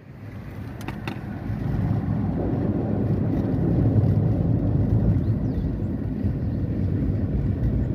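Vehicle engine and road noise while driving: a steady low rumble that grows louder over the first two seconds, with a couple of light clicks about a second in.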